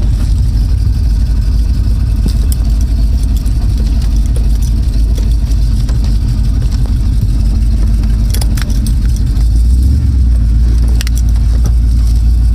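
1984 Chevrolet K5 Blazer's 454 big-block V8 running steadily with a deep low rumble, a few light clicks or rattles over it; the low rumble shifts and grows slightly louder about ten seconds in.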